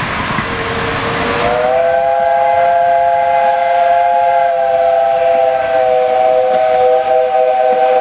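15-inch-gauge steam locomotive sounding its chime whistle in one long blast over a steady rushing noise: a single note starts about half a second in and is joined about a second later by two higher notes, a steady three-note chord.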